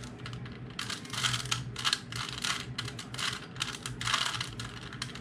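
Plastic Rubik's Cube layers being twisted by hand in quick succession: a rapid, uneven run of clicks and clacks.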